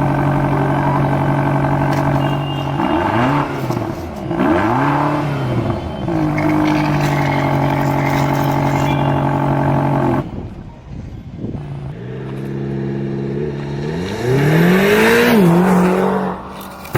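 Vehicle engine running steadily, with several revs that swoop up and fall back, and a brief drop in level about two-thirds of the way through.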